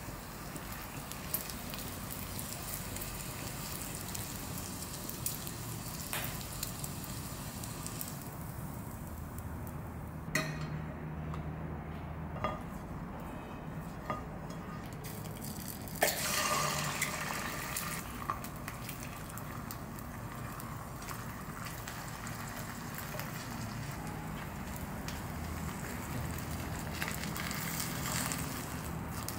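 Butter and an egg frying in a ceramic frying pan: a steady sizzle with occasional clicks and scrapes from a silicone spatula. The sizzle gets louder and brighter a little past halfway through.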